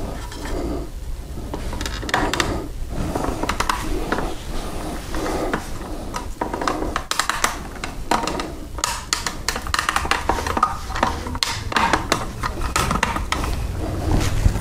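Gloved hands fitting a potato onto an electric potato peeler: irregular plastic clicks, knocks and rustling as the potato is pushed onto the spike and the top clamp is set, with the motor not yet running.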